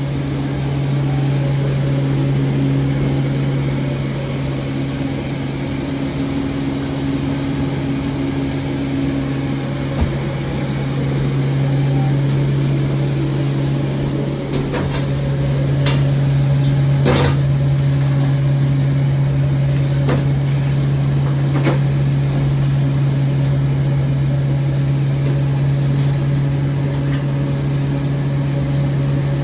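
A steady low machine hum with a few scattered clicks and knocks, the sharpest about halfway through.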